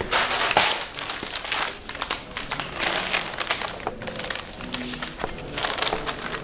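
Irregular rustling and crinkling with scattered small clicks.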